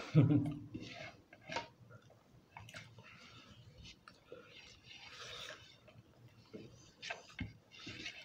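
Quiet eating sounds: chewing, and scattered small clicks and rustles of fingers mixing khichuri (rice and lentils) in plates, with a short voice sound right at the start.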